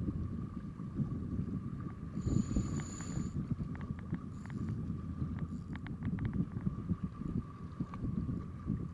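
Wind buffeting the microphone with a low, uneven rumble, while a fish is played on a bent spinning rod; a brief high whine about two seconds in and a scatter of light clicks from the spinning reel around the middle.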